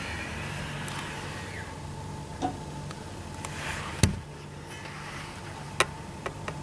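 Rail grinder running steadily as a track worker grinds a Shinkansen rail, with a low hum and a steady mid-pitched tone. Several sharp clicks and knocks cut in, the loudest about four seconds in.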